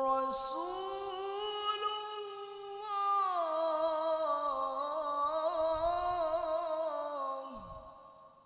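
A male qari recites the Quran in a high, melodic tilawah style. He holds one long sung vowel with wavering ornaments, steps down in pitch about three seconds in, and lets the note fade out near the end.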